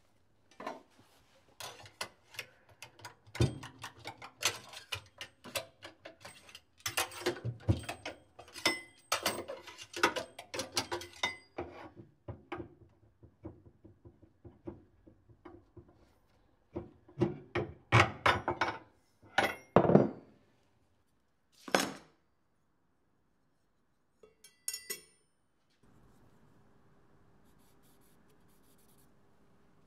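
Metal parts and tools being handled by hand: irregular clanks and clinks, some ringing briefly, in two busy runs, then a few isolated knocks. A faint steady hum starts near the end.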